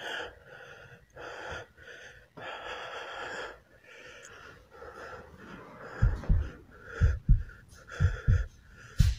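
A person breathing heavily and fast, close to the microphone, in repeated hissy breaths. From about six seconds in, low double thumps come about once a second, in the rhythm of a heartbeat.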